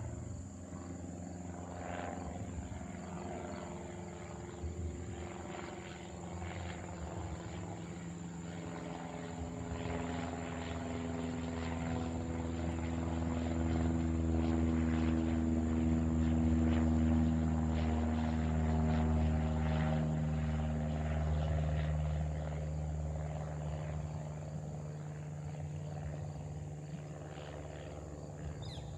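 Cessna 172 Skyhawk's piston engine and propeller passing overhead. It grows louder to a peak about halfway through, then fades away, its pitch dropping as it passes.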